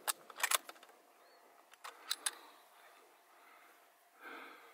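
A few sharp clicks and knocks: one at the start, a quick pair about half a second in, and a cluster of two or three around two seconds in. A short breathy sound comes near the end.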